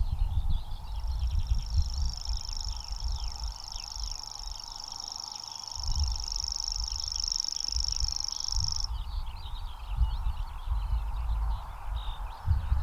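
Grasshopper warbler reeling: a steady, high-pitched insect-like trill that starts about a second in and stops abruptly about three-quarters of the way through. Other songbirds chirp throughout, and wind rumbles on the microphone.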